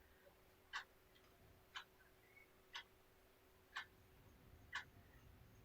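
A clock ticking faintly, about one tick a second, over near-silent room tone.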